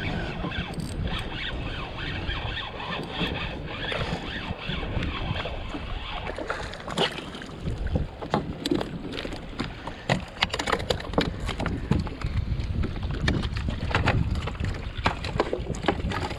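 Wind buffeting the microphone on a kayak in choppy water, with many short slaps and knocks of water and gear against the hull.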